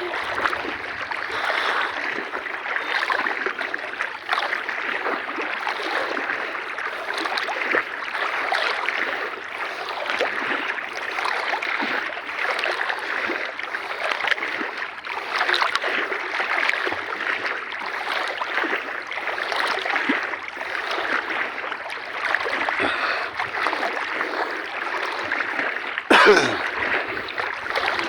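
Water splashing and sloshing in a steady wash that swells and fades every second or so, with one sharper, louder splash near the end.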